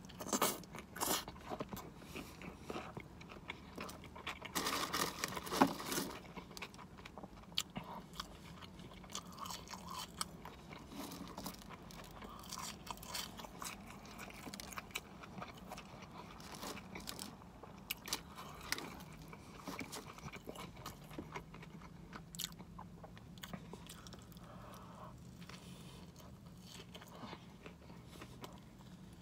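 Close-miked eating of a sesame-bun burger: biting, chewing and wet mouth sounds, with many small crisp clicks. The bites are loudest in the first six seconds, and the chewing grows quieter after that.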